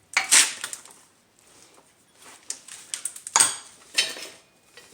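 Metal tools and brake parts clinking and clattering as they are handled, with a loud knock just after the start and another burst of clatter about three and a half seconds in.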